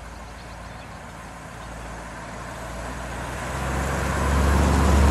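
A 1957 Chevrolet Bel Air's fuel-injected 283 V8 driving toward the microphone, its low engine and exhaust rumble growing steadily louder as the car approaches and loudest near the end.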